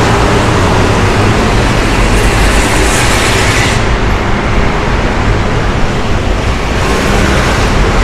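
Steady road traffic noise from passing vehicles, with one vehicle passing close and fading away about four seconds in.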